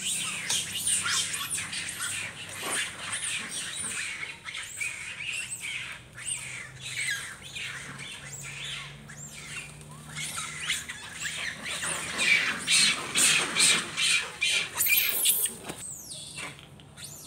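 Macaques screaming and squealing: many overlapping shrill, arching cries, getting loudest and most frantic around two-thirds of the way in, typical of a troop fight.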